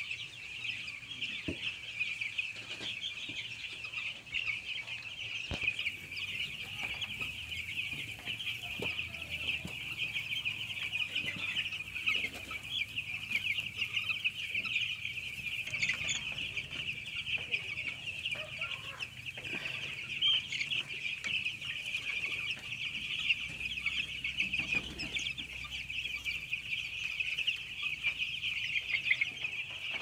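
A large flock of six-day-old broiler chicks peeping without pause, many high chirps overlapping into one steady chorus.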